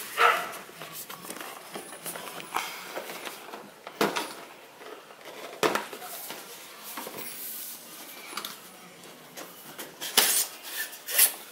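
DJI Spark's cardboard retail box being handled and opened: papery scrapes and rustles of the box sliding in the hands, with scattered sharp taps and knocks. The loudest are just after the start, about four seconds in, and near the end.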